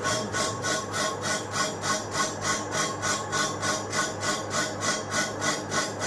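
DCM35P-2 vertical CNC wheel repair lathe machining a spinning alloy wheel: the cutting tool gives a scraping, rasping sound that swells and fades about three times a second, with a faint steady whine underneath.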